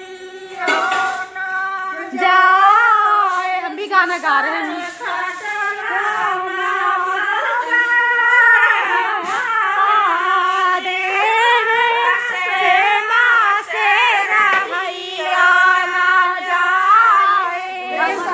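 Women singing a song together, in long wavering sung lines with only brief breaks.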